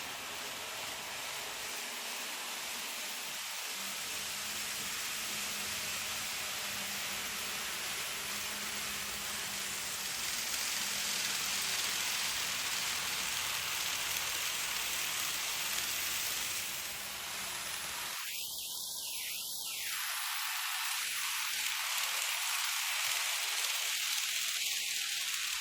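N gauge model train running on the layout's track: a steady rushing hiss of wheels on the rails with a faint low motor hum, the hiss growing somewhat brighter about halfway through.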